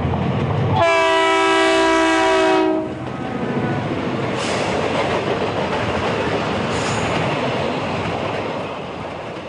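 BNSF diesel freight locomotive passing close by, its engine rumbling, then sounding its multi-chime air horn in one long blast of about two seconds. The blast gives way to the steady rolling noise and clickety-clack of boxcars and flatcars going by, easing off near the end.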